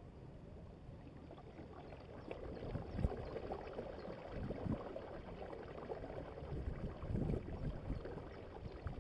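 Water gurgling and splashing along the hull of a Hobie Adventure Island sailing kayak under sail, with uneven low buffeting of wind on the microphone. It grows louder from about two seconds in.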